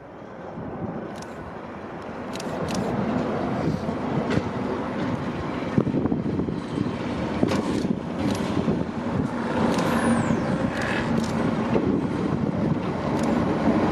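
Diesel locomotive engine running as the locomotive approaches slowly, growing steadily louder.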